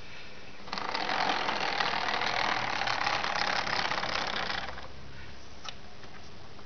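A model tram's small electric motor and gears whirring. The whirr starts under a second in and stops after about four seconds, followed by a single light click.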